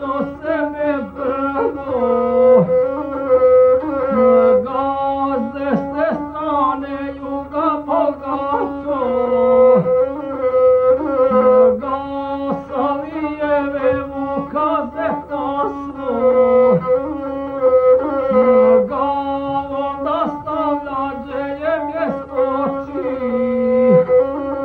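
Gusle, the single-string bowed folk fiddle with a skin-covered body, played continuously in a nasal, sliding line, with a man's voice chanting an epic song over it in phrases that fall away at their ends.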